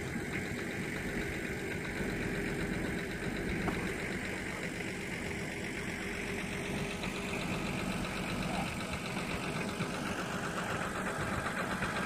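A vehicle engine idling steadily, a little louder near the end.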